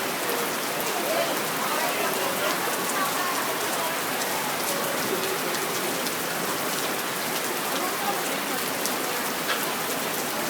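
Heavy rain pouring steadily, with many small sharp ticks of drops striking nearby surfaces.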